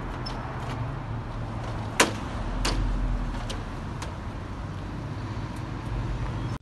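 Street background: a steady low rumble of road traffic, with a few sharp clicks or knocks, the loudest about two seconds in.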